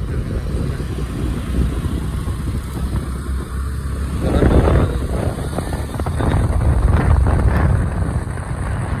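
Motor scooter being ridden: a steady low rumble of engine and road, with louder rushes of noise about four seconds in and again from about six to eight seconds.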